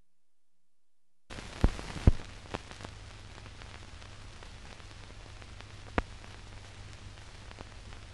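Surface noise of an old newsreel film soundtrack: a steady hiss with a low hum that starts abruptly a little over a second in, broken by three sharp pops in quick succession and one more a few seconds later.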